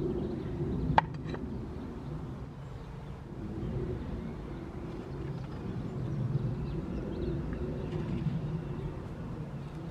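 Terracotta flowerpots being set down on clay saucers and a wooden tabletop, with a sharp clink about a second in and a lighter one just after, over a low steady rumble.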